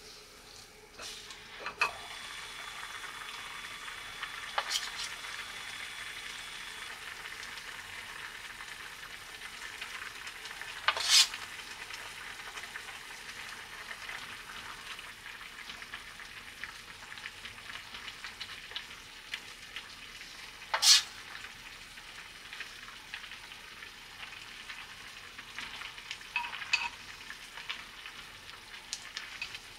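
Tomato and fish broth simmering in a clay donabe pot over a gas flame, a steady bubbling hiss. A metal spoon clinks sharply against the pot several times, two of the clinks much louder than the rest.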